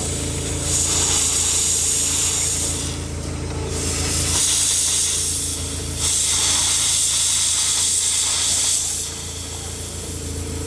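Miniature live-steam locomotive venting steam in long hissing blasts of two to three seconds, the strongest from about six to nine seconds in, over a steady low hum.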